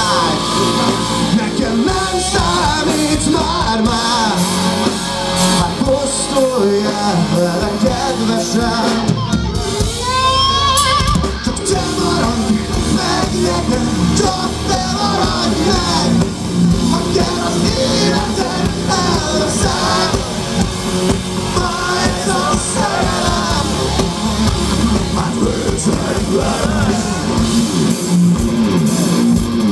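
Live rock band playing loud: electric guitars, bass and drum kit, with a male lead singer, heard from within the audience.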